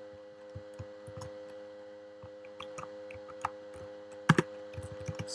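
Sparse, irregular clicks from a computer keyboard and mouse, two of them louder about four seconds in, over a steady electrical hum.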